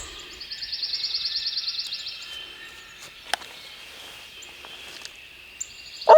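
Spring woodland ambience: a small bird's rapid high trill for about two seconds over faint steady high chirring, then one sharp click. A loud pitched call breaks in right at the end.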